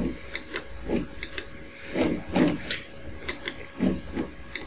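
A string of short sharp clicks, a few a second, from the controls of a grandMA1 lighting console being pressed while colour presets are picked.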